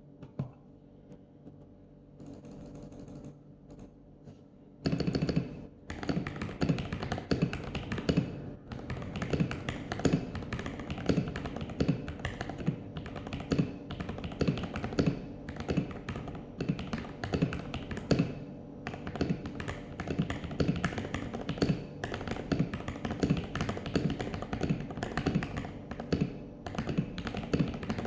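Typing on a CIY Tester68 mechanical keyboard with lubed MMD Panda switches and XDA-profile keycaps: after a few faint clicks, a quick, continuous run of key presses starts about five seconds in.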